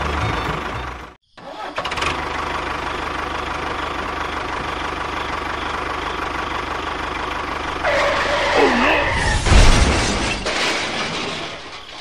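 Tractor engine running steadily after a brief dropout about a second in. Near the end a wavering pitched sound and a thud come over it, and then it fades.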